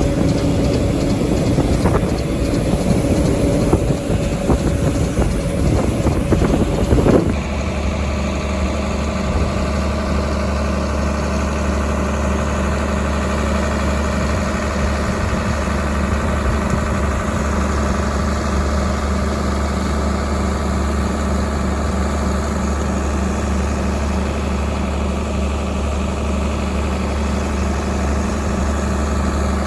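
Wind buffeting the microphone over running harvest machinery. About seven seconds in, this cuts to the steady drone of a heavy farm engine heard from inside a cab.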